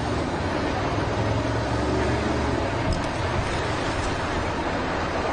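A steady low engine rumble under broad outdoor noise.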